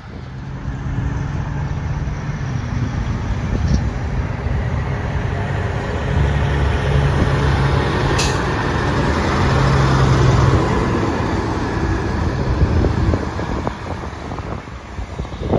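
Diesel engine of a long-hood Peterbilt semi running steadily as the truck pulls past at low speed, growing louder as it passes close and fading as it moves away. A short, sharp hiss of air cuts in about eight seconds in.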